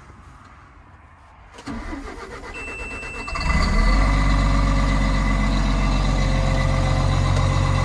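John Deere 950J bulldozer's diesel engine cranking on the starter, with a steady high beep sounding briefly. It catches about three and a half seconds in and settles into a steady idle, heard from inside the cab.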